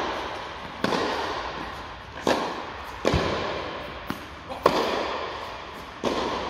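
Tennis ball being hit with rackets and bouncing on an indoor court during a rally. There are about five sharp pops, roughly a second or so apart, each with a long echo in the hall.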